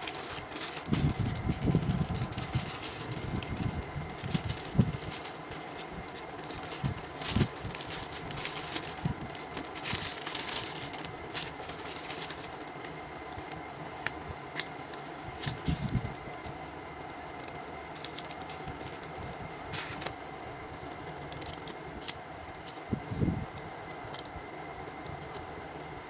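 A plastic courier mailer crinkles and rustles as it is torn open and unpacked, with scattered knocks and clicks as the items are handled. A steady fan hum runs underneath.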